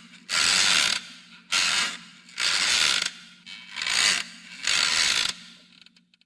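A ratcheting mechanism wound in five rasping bursts, about one a second, over a steady low hum.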